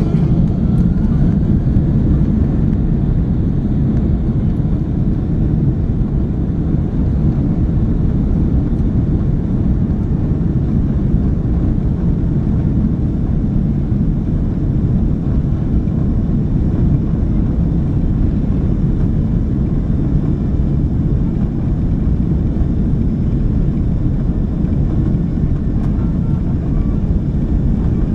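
Airbus A330-200 cabin noise heard from an economy seat: a loud, steady rumble of the jet engines and airflow, with no change in pitch or level.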